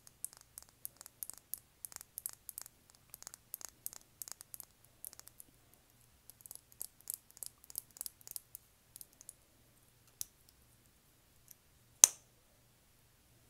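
Fingernails tapping and clicking on a small plastic lip gloss tube and cap: a quick, uneven run of light taps for most of the first nine seconds, then a few scattered clicks. About twelve seconds in comes one sharp, much louder click as the cap is pulled off the tube.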